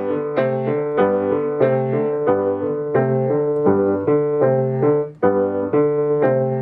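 A grand piano playing a repeated two-handed chord pattern, about two or three chords a second, with a brief break about five seconds in.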